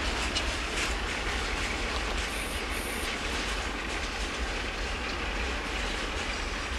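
Freight train wagons rolling past: a steady rumble of steel wheels on the rails, with scattered clicks as the wheels cross rail joints.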